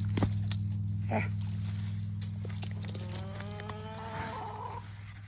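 A cow mooing: one long, low call that rises in pitch, about three seconds in, over a steady low hum that slowly fades. Two short knocks come in the first second or so.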